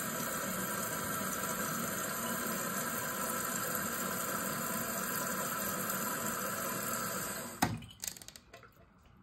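Toilet tank refilling through its fill valve: a steady rush of water that cuts off suddenly near the end with a click as the valve shuts, followed by a few drips.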